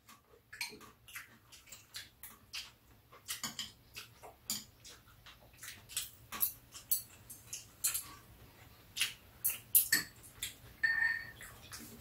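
Metal chopsticks and spoons clicking and tapping against bowls during a meal: irregular light clicks, several a second, with a few sharper ones.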